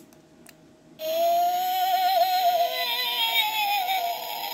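A few faint clicks, then about a second in the ghost toy's sound chip starts up through its small speaker: loud electronic tones that warble and waver in pitch like a synthetic voice, the toy's 'annoying sound'.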